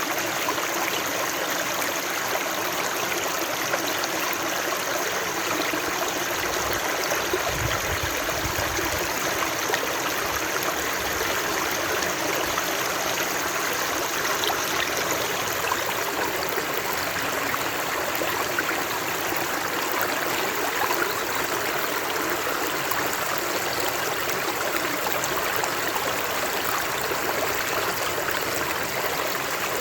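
Running water flowing steadily, an even rushing and splashing. A brief low rumble comes in about seven seconds in and fades after a couple of seconds.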